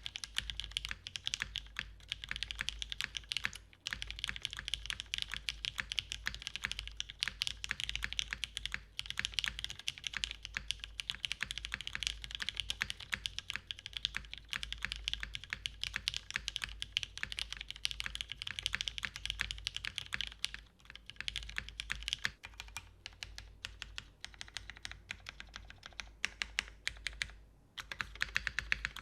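Custom mechanical keyboard being typed on fast and continuously: linear Cherry MX Black switches lubed with GHV4 in an aluminum plate and Matrix 8xv2.0 case, under GMK keycaps. The keystrokes come as a dense run of clicks, with a short pause about four seconds in and another about a second and a half before the end.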